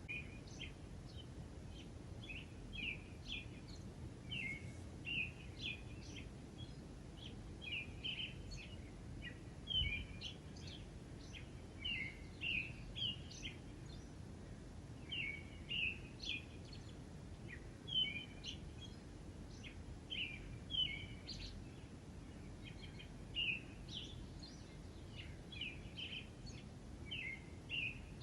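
Birds chirping: short high chirps in quick clusters, coming about once a second, over a steady low background hiss.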